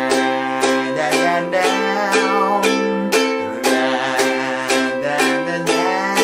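Ukulele strummed in a steady rhythm, about two strums a second, on C and A minor chords, with a man singing 'la la la' over it.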